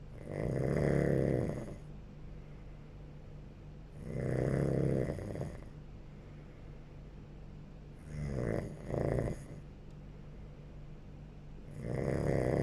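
A person snoring in sleep, one loud snore about every four seconds, four in all, the third broken into two short snorts. A steady low hum runs underneath.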